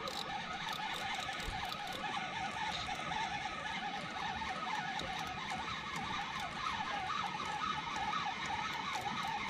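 Suzuki 2.5 hp single-cylinder four-stroke outboard running steadily at trolling speed, a continuous motor drone with a wavering whine.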